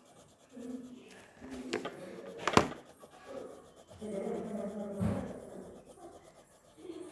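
Graphite rubbing on notebook paper as a pencil circle is shaded and smudged, an uneven scratchy rubbing. A single sharp tap about two and a half seconds in.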